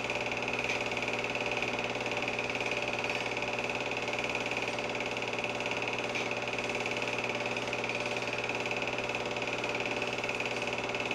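Home-movie film projector running steadily, a constant mechanical whir with several unchanging tones.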